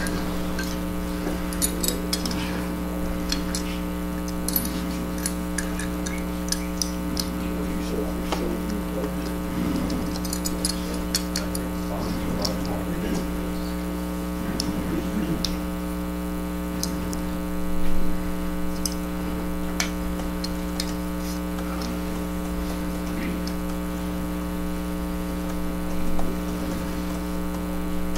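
Steady electrical mains hum, with scattered faint metallic clicks and taps as a chisel and its small clamp are handled and adjusted. There are a couple of louder bumps, about two-thirds of the way through and near the end.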